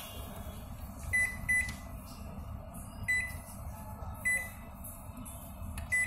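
LG convection microwave oven running with its casing off, a steady low hum that the repairer puts down to a faulty fan motor. Its keypad gives about six short beeps as buttons are pressed.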